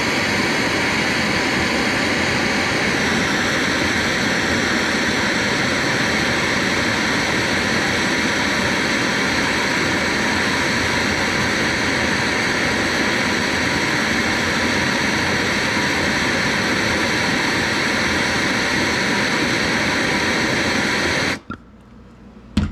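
Hand-held gas torch burning with a steady hiss, its flame held on a steel punch to heat it red hot. The hiss cuts off suddenly near the end, and a sharp click follows.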